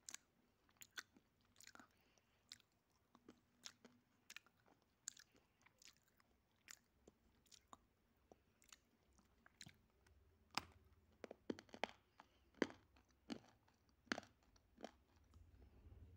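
Close-up crunching and chewing of a hard, brittle chunk, likely one of the chalky clay stones, with sharp irregular crackles that come faster and louder in the second half.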